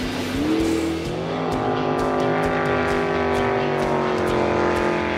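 Racing jet boat engine running hard, rising in pitch about a second in and then held at high revs, over background music with a steady beat.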